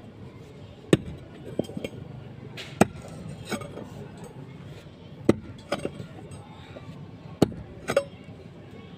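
Sharp metallic knocks and clinks of hand tools striking hard building material, an irregular strike every second or two.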